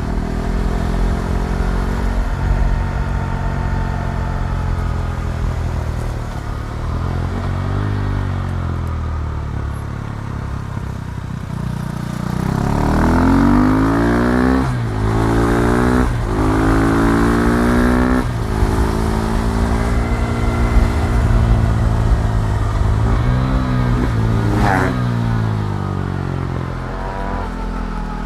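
KTM Duke 390's single-cylinder engine under way, its pitch rising and falling with the throttle. About halfway in it pulls hard through several quick upshifts, each rising note cut off by a short break, then revs up and down again.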